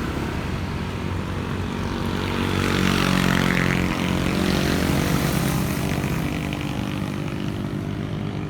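A motor passing by, a steady engine hum that swells to its loudest about three to five seconds in, its pitch sliding down as it goes past, then fades.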